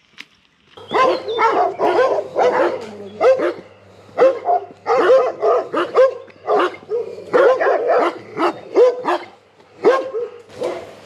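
Maremma sheepdogs barking, a long run of barks in quick succession that starts about a second in and keeps going almost to the end.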